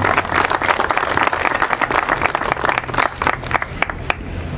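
Audience applauding, the clapping thinning to a few scattered claps and dying out about four seconds in.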